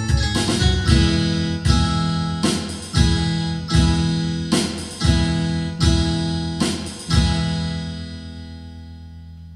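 Closing chords of a song: guitar striking a series of strummed chords, then a last chord struck about seven seconds in that rings out and fades away.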